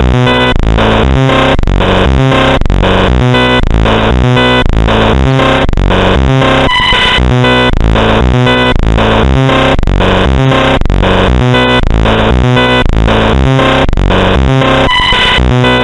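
Harsh, loud, distorted synthesized alarm sound repeating in fast pulses, with a brief steady beep about seven seconds in and again near the end.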